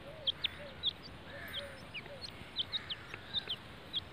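Young partridges peeping: short, high chirps that drop quickly in pitch, a dozen or so at an irregular pace, mixed with a few soft, lower calls.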